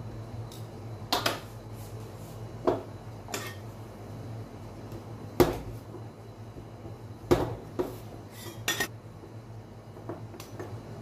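Metal spatula and tongs knocking and clinking on the stainless steel plate of a rolled-ice-cream cold plate while a chocolate bar is chopped: about ten scattered sharp taps, the loudest about five seconds in. A steady low hum runs underneath.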